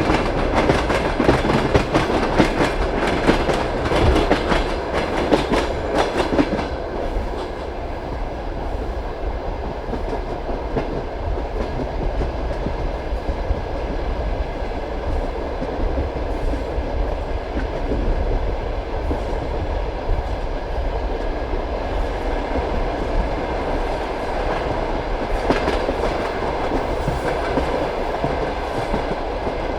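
Passenger railway carriage rolling along the track: the wheels clack rhythmically over the rail joints over a steady low rumble. The clatter is dense for the first six seconds, settles into a smoother rumble, then picks up again briefly near the end.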